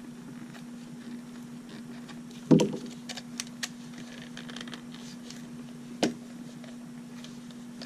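Hands working at a small product package to get it open: scattered light clicks and crinkles, with two sharp knocks, the louder about two and a half seconds in and another about six seconds in. A steady low hum sits underneath.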